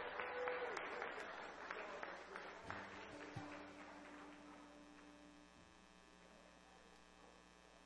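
Congregation applauding, dying away over the first three seconds or so, followed by a faint steady hum.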